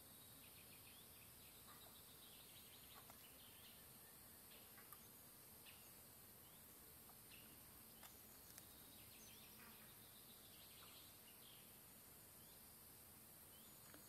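Faint birds chirping and trilling here and there over a steady high hiss.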